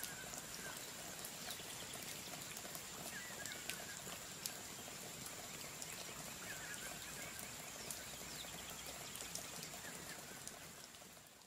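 Melted sugar caramel bubbling and crackling in a nonstick frying pan as a wooden spatula stirs it, with many small pops. The sound fades out near the end.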